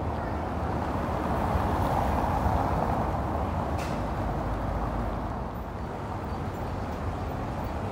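A road vehicle passing on the street: steady tyre and engine noise that swells about two seconds in and fades over the following few seconds, with a low rumble underneath and a brief click near the middle.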